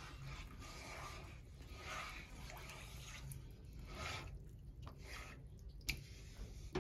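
Spoon stirring a runny mix of cornflour, sugar and water in a pan: faint liquid swishing, with a couple of light clicks near the end.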